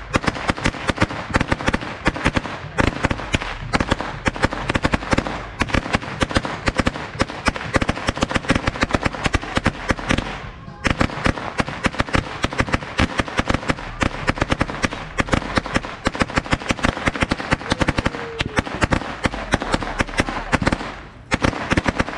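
A long string of Thunder Bomb firecrackers going off in a rapid, continuous crackle of bangs, many a second. There is a brief gap about halfway through, then it carries on and thins out near the end.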